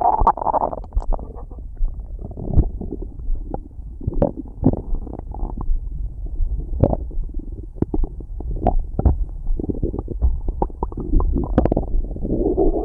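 Stomach growling, heard up close: a muffled run of gurgles and rumbles broken by many irregular sharp clicks, with low thuds underneath.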